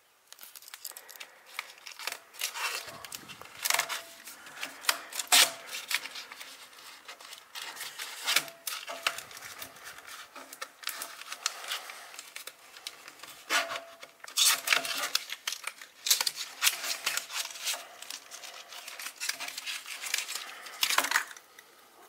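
Small cardboard retail box being opened and emptied by hand: paper tearing, crinkling and rustling, mixed with sharp clicks and taps. The sounds come in clusters, louder about a quarter of the way in, in the middle stretch and again near the end.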